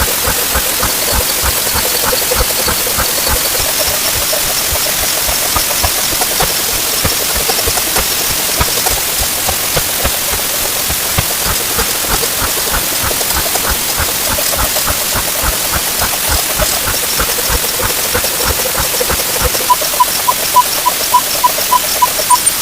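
Timer sound effects played 64 times faster: a dense hiss of overlapping ticks and beeps, with rapid clicks and rows of short repeating tones. Near the end, a regular series of short beeps, about two or three a second, comes through clearly.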